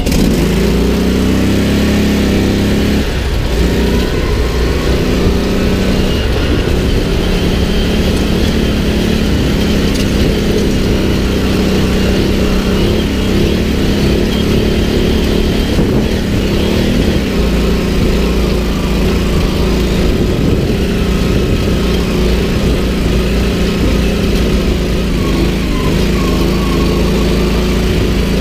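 Off-road buggy engine running under throttle as the buggy drives over grass, its pitch steady and wavering only a little.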